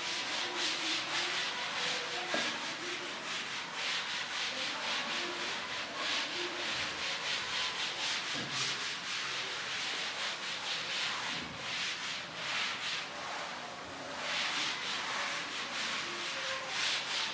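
Cloth wiping a chalkboard: quick, repeated back-and-forth strokes rubbing the board clean of chalk.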